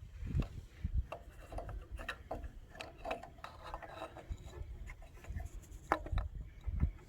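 Irregular rubbing and scraping strokes with scattered light clicks and knocks: sandpaper working the rust off the Wisconsin TJD engine's frozen governor shaft by hand.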